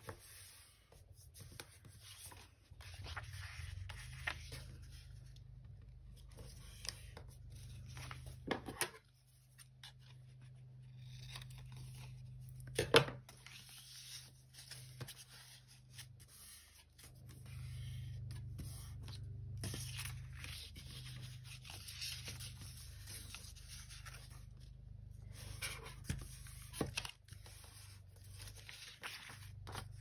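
Paper being handled, folded and creased by hand on a tabletop: intermittent rustling and rubbing, with a few sharp taps, the loudest about thirteen seconds in, over a steady low hum.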